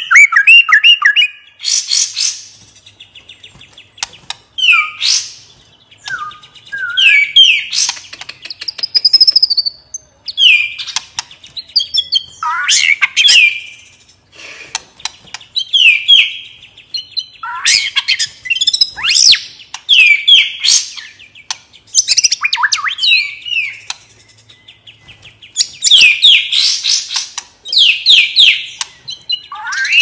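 White-rumped shama singing a relaxed, open-voiced (ngeplong) song. It comes as loud phrases of whistles and quick chattering notes, each a second or two long, many sweeping down in pitch, with short pauses between.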